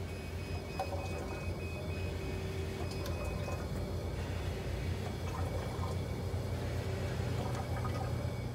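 Fresenius 2008T haemodialysis machine running with a steady low hum and faint fluid sounds from its pumps and tubing. A faint high electronic tone pulses on and off for the first few seconds.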